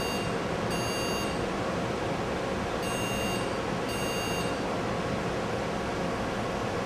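Motherboard PC speaker sounding the POST memory-error beep code: long beeps about half a second each, repeating roughly once a second with one longer gap, the last ending about four and a half seconds in. The board is signalling that it finds no RAM installed. A steady fan hum runs underneath.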